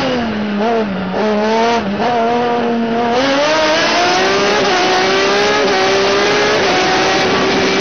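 Honda CB500 Four's air-cooled inline four-cylinder engine, heard from on board while pulling up a winding hill, with a note the uploader calls strange. The revs drop near the start, waver, then climb about three seconds in and hold steady at a higher pitch.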